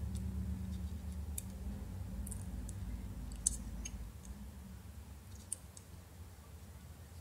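Faint scattered clicks and ticks of small plastic and metal parts being handled and pressed into an LG V20 phone's frame, a sharper click about halfway through and another some two seconds later, over a low steady hum.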